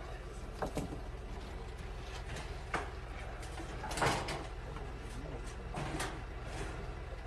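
A few scattered clicks and knocks over a steady low hum, the loudest knock about four seconds in.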